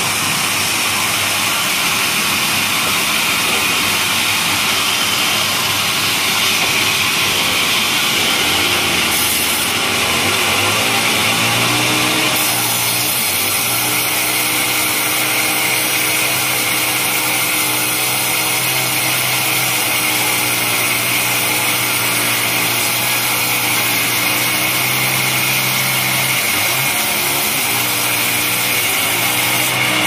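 Homemade band sawmill running and ripping coconut-wood timber: a steady hissing whine of the blade cutting. About twelve seconds in the sound shifts, the hiss brightening and a steady low hum coming through.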